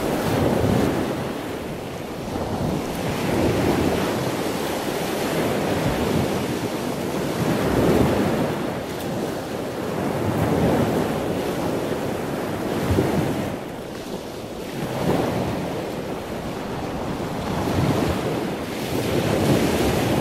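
Sea waves washing ashore, the surf swelling and easing every few seconds, with wind buffeting the microphone.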